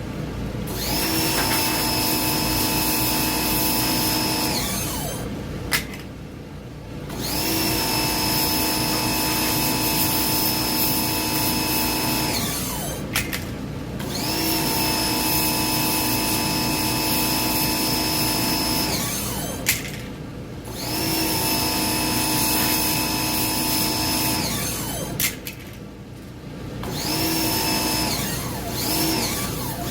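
A small electric power tool run in repeated bursts of about four to five seconds, each one winding up to a steady whine, holding, then winding down, with sharp clicks in the short pauses between runs.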